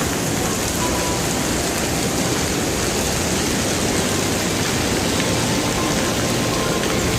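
Steady rushing of falling water from a waterfall water feature, an even noise that holds constant throughout.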